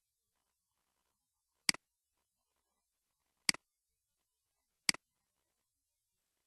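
Computer mouse button clicking three times, each a quick press-and-release double click.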